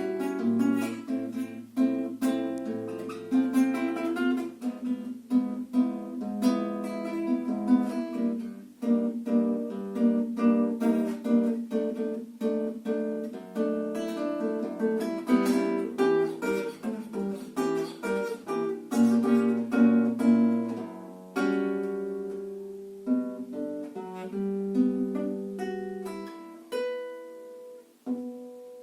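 Acoustic guitar playing a fingerpicked piece: a quick run of plucked notes that thins to slower, sparser ringing notes about two-thirds of the way through, closing on a final note left to ring out near the end.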